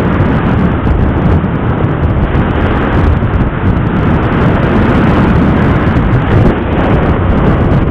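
Steady loud wind rushing over the microphone of a camera on a moving motorcycle, with engine and road noise underneath.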